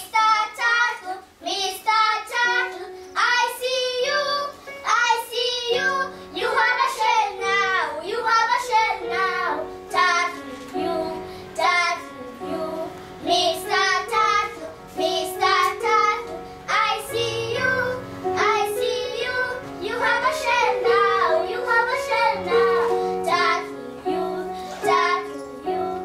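Children singing a song, joined by steady instrumental accompaniment about four seconds in.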